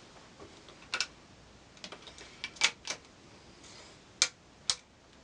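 Weihrauch HW57 underlever spring air rifle being cocked and handled: a string of sharp metallic clicks from the lever and action, the loudest about two and a half and about four seconds in.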